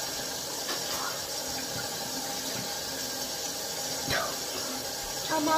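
Bathroom sink tap running steadily while a face mask is rinsed off with water. Near the end a voice starts humming.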